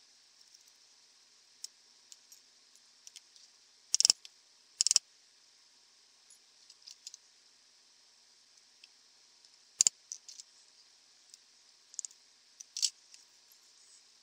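Small steel push-drill bits and parts of a Millers Falls push drill clinking against a stone benchtop as the drill is taken apart and its bits are set down. Scattered light clicks are broken by a few louder clinks, two of them close together about four and five seconds in.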